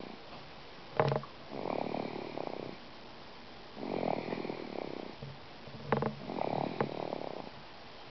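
Snoring: three rattling snores about two and a half seconds apart, one on each breath. A short sharp sound comes just before the first and the third.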